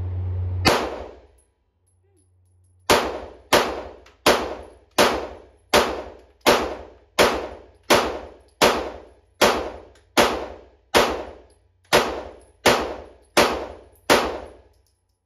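Gunshots: one shot, a short pause, then a steady string of about fifteen shots, roughly one every three-quarters of a second, each sharp crack followed by a ringing decay.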